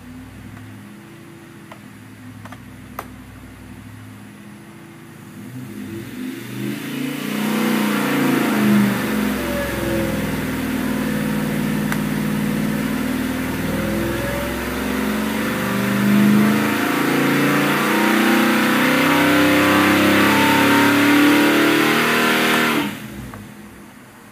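Oldsmobile 455 big-block V8 with FAST fuel injection on an engine dyno: idling, then opened up about six seconds in and run hard under dyno load, its pitch sagging and then climbing, before the throttle is chopped and the sound drops off sharply near the end.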